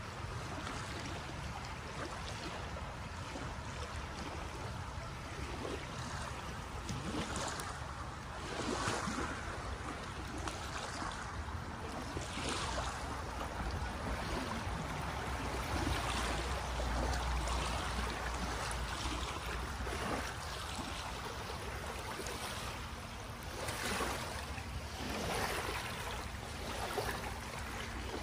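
Small waves washing against a sandy shoreline, swelling every few seconds, with wind buffeting the microphone as a low rumble.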